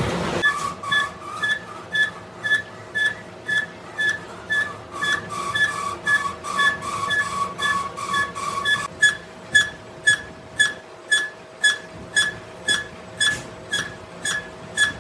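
Workshop machinery making a short, high-pitched squeaky tick about twice a second, evenly spaced like one squeak per turn of a rotating part, over a steady faint whine. An extra tone runs under the ticks for the first nine seconds, then stops.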